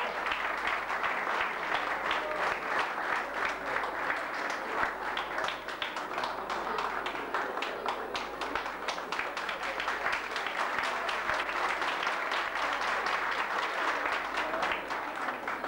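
Audience applauding with hands, a steady dense clapping that dies away near the end.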